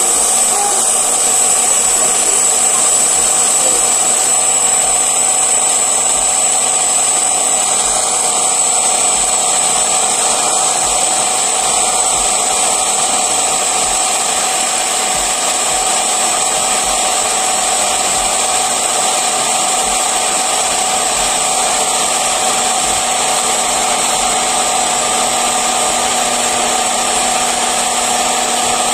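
Electric hot-air popcorn maker running, its blower fan whirring steadily with a held whine as it heats and tumbles the corn kernels in the chamber.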